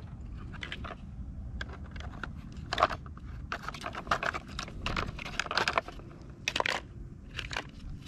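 Hard plastic toy truck wheels and axle parts clicking and knocking as they are handled and pushed onto the axles, an irregular string of clicks with the loudest knocks a little under three seconds in and around six and a half seconds, over a low steady rumble.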